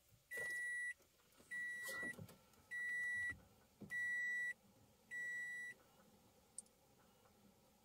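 Toyota Prius C dashboard warning chime beeping five times, one steady tone, each beep about half a second long and about 1.2 s apart, followed by a small click.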